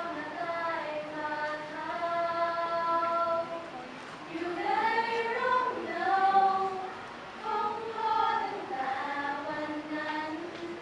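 Women's choir singing in harmony with no instruments, in slow phrases of long-held notes with short breaks for breath between them.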